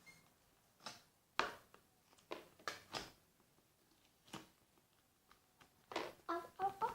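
Slime being squished and worked by hand, giving short sticky clicks and pops at irregular intervals, with a brief cluster of pitched squeaks near the end.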